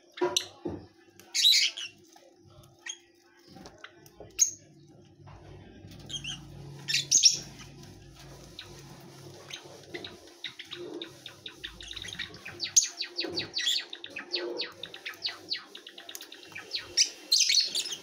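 Rosy-faced lovebirds chirping: loud, sharp, high calls now and then, with a fast run of short chattering ticks through the second half.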